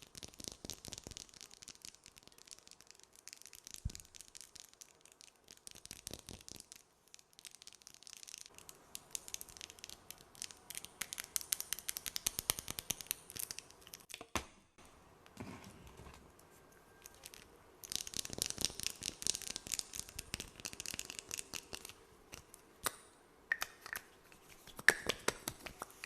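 Close-miked ASMR mouth sounds: sticky, wet clicks and smacks mixed with fast tapping. They come in bursts of dense crackling with quieter spells between.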